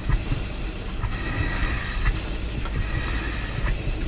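A firefighter breathing through an SCBA mask and regulator: two long hissing breaths with a faint whistle, about a second and a half apart, over a steady low rumble.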